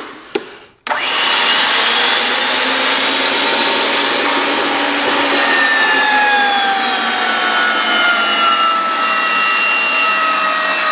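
A motor-driven machine starts suddenly about a second in and runs steadily with a loud whir, over which a faint whine slowly falls in pitch.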